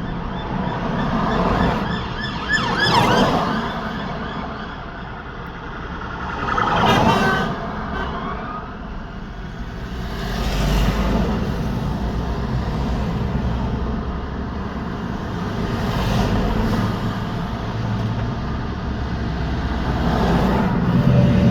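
Road traffic: a steady rush of cars and trucks with several vehicles passing close by one after another, each swelling and fading, the clearest about 3, 7 and 11 seconds in, with engine and tyre pitch dropping as they go past.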